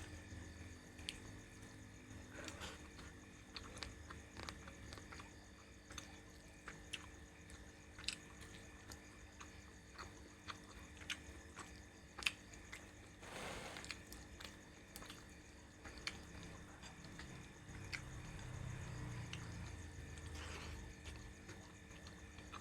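A person chewing and eating, with faint wet mouth sounds and scattered light clicks.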